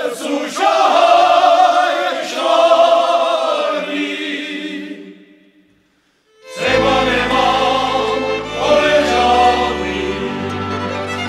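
Group of men singing a Moravian folk song together, fading out about five seconds in. After a short pause, a folk string band with fiddle and a steady bass line starts playing.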